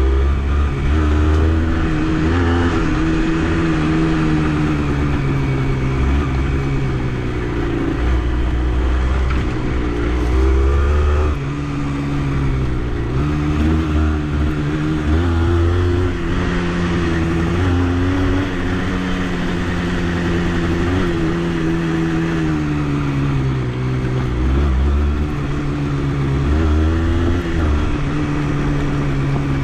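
Honda CRM80's two-stroke single-cylinder engine running under way, its revs rising and falling again and again with the throttle and gear changes.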